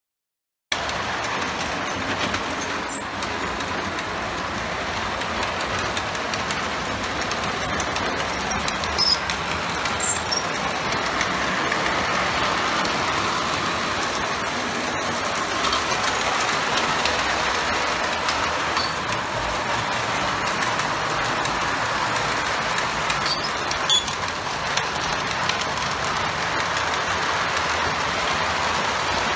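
Model steam locomotive and coaches running along the track: a steady rumble of wheels on rail that begins about a second in, with a few sharp clicks.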